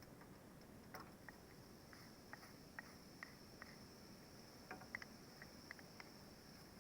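Near silence, broken by faint, scattered small clicks at irregular intervals over a thin, steady high-pitched tone.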